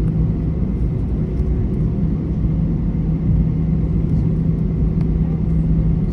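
Airbus A321 cabin noise while taxiing: the engines run at steady taxi power with a constant low drone, over a low rumble from the aircraft rolling along the taxiway.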